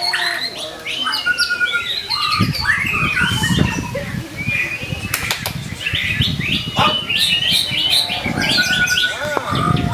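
White-rumped shama (murai batu) in full song: a fast, unbroken run of varied whistles, trills and sweeping notes. Low rustling thumps come in three spells, a few seconds apart.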